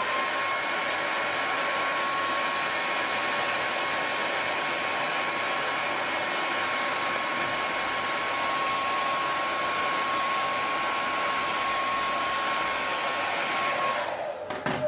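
Handheld hair dryer blowing steadily, with a steady motor whine that rises to pitch as it switches on at the start. It cuts off near the end.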